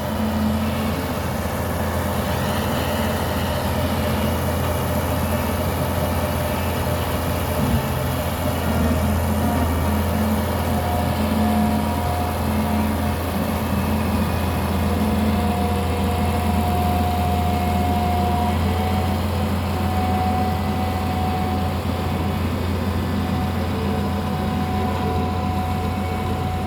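Heavy diesel engine of a JV100 WP bulldozer running steadily, with a faint whine that comes and goes.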